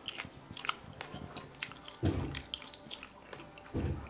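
Close-up chewing of a crunchy homemade baked treat: many small crisp crunches and clicks. Two short low sounds come about two seconds in and again near the end.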